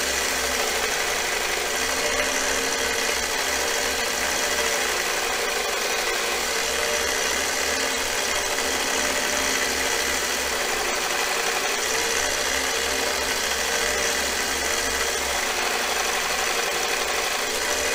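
Harbor Freight 1x30 belt grinder, converted to a variable-speed DC motor, running steadily while the edge of a parting tool is held against the moving abrasive belt for sharpening.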